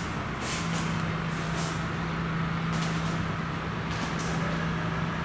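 A steady low machine hum, with several short swishes from a martial artist's movements as he demonstrates a snake-form kung fu technique.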